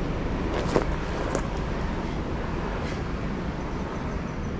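A helicopter flying nearby, heard as a steady low rumble.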